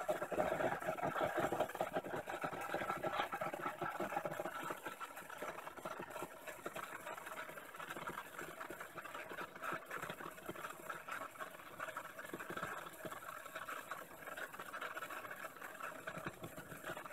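Water boiling and bubbling in the lower glass bulb of a Don Pedro vacuum coffee maker on a hot electric hotplate, the steam pushing water up the tube into the upper bowl. It makes a steady, busy rattle that is louder for the first few seconds and then settles a little.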